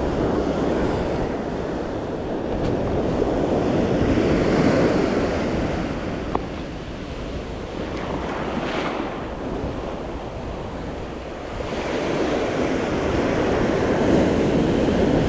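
Ocean surf washing on a beach, swelling and ebbing as the waves come in, with wind buffeting the microphone. A single short tick sounds about six seconds in.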